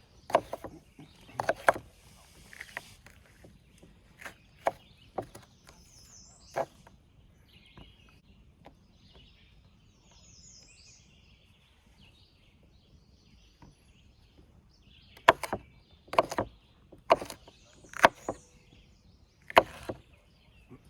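Knife knocking on a cutting board as peppers are cut: sharp, irregular chops in clusters, the loudest run of about six strokes near the end. A bird chirps faintly twice in the quieter middle stretch.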